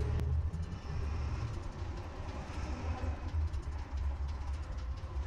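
Steady low rumble of a car's engine and road noise heard from inside the cabin through a dashcam microphone.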